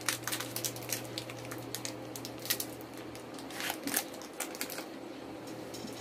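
Scattered crinkles and crackles of a small plastic candy wrapper being handled and opened, over a steady low hum.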